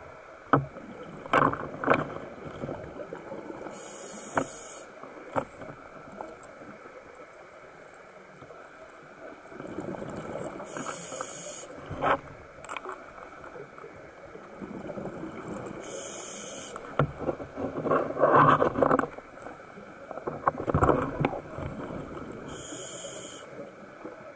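Scuba regulator breathing underwater: a short hiss about every six seconds, with bubbling bursts between and scattered sharp clicks.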